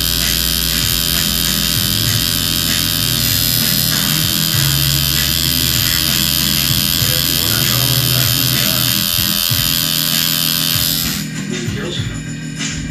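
Background music with a shifting bass line, over the steady buzz of an electric tattoo machine working on skin; the buzz stops about eleven seconds in.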